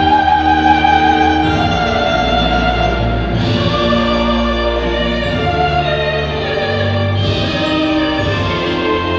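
A national anthem played as an orchestral recording with a sung melody, slow and sustained.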